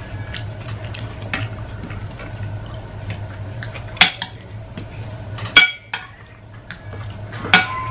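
Metal spoons and forks clinking and scraping against ceramic plates and bowls while food is served and eaten, with three sharp clinks about four, five and a half and seven and a half seconds in. A steady low hum runs underneath.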